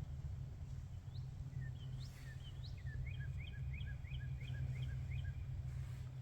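A steady low rumble of wind on the microphone. Over it a small songbird gives a few scattered chirps, then a quick series of about nine repeated chirps, roughly three a second, ending shortly before the close.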